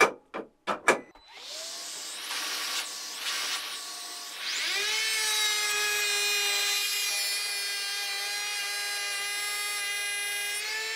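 A few clicks, then a vacuum cleaner starts up with a steady hiss. About four seconds in, a Bosch GHO 12V-20 cordless brushless planer's motor spins up with a rising whine and runs at a steady high pitch, winding down near the end while the vacuum keeps running.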